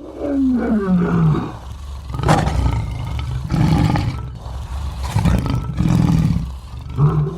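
Lion roaring: a long call that falls in pitch, then a run of deep, short grunts, and another falling call near the end.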